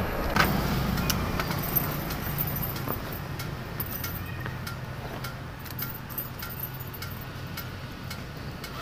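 Suzuki Raider R150 carb's single-cylinder engine idling with a steady low hum that slowly gets quieter, with light clicks and clinks scattered over it.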